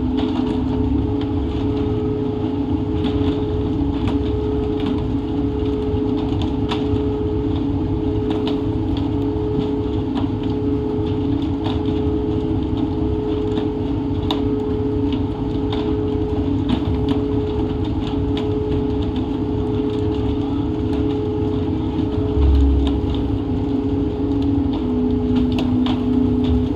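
Fishing boat's engine running steadily with a constant hum, with scattered sharp slaps and knocks of tuna landing on the deck and one heavy low thump near the end.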